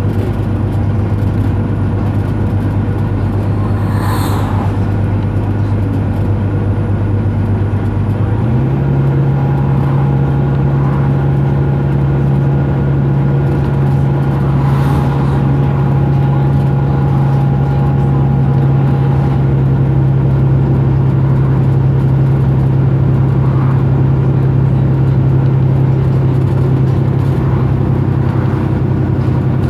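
Volvo B9TL bus's six-cylinder diesel engine heard from inside the bus, working hard at high revs climbing a steep hill. Its pitch steps up about eight seconds in and then holds steady.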